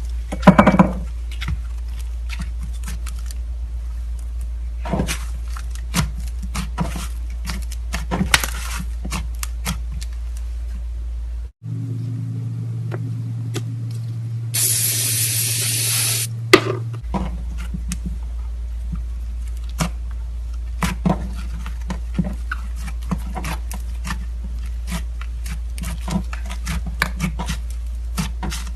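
Slime being kneaded and mixed with clay: sticky squishes, small clicks and crackles over a steady low hum. About twelve seconds in the hum drops out, and a steady hiss lasting about two seconds follows before the hum and crackling return.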